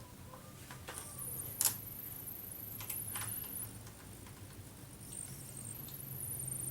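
Screws being driven into a laptop's plastic bottom case with a screwdriver: high scratchy squeaking as the screws turn, with a few light clicks of handling, the sharpest about one and a half seconds in.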